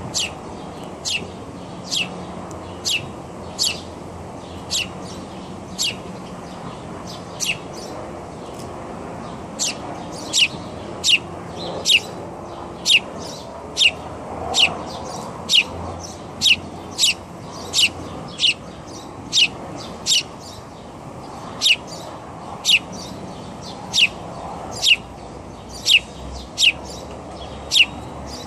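A bird calling: short, high chirps that each drop in pitch, repeated about once a second and coming faster about a third of the way in, over steady low background noise.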